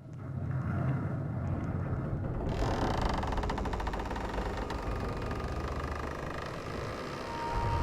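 Low rumbling and creaking. About two and a half seconds in, it turns into a dense, rapid rattling creak.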